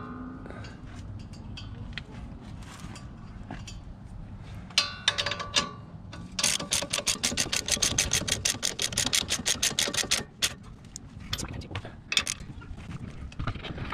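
Hand socket ratchet clicking rapidly and evenly, about nine clicks a second for three to four seconds from about six seconds in, as a nut is run back onto the front suspension during reassembly. Scattered clicks and knocks of the tool before and after.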